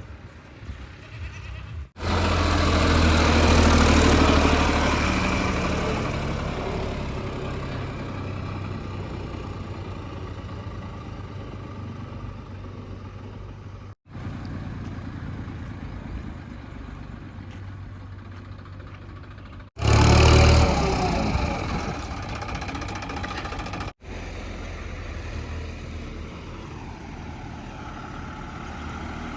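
Diesel engine of a JCB 3DX backhoe loader running under working load while it digs and loads mud. It surges louder twice, each time dying back down over a few seconds, and the sound breaks off abruptly several times.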